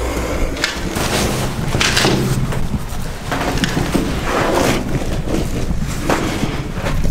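A person clambering through a narrow concrete opening: clothing and gear rustling and scraping against concrete and rusty iron, with irregular knocks and bumps, the camera rubbing close by.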